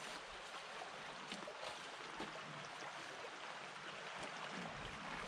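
Creek water running steadily past a log jam, with a few faint clicks.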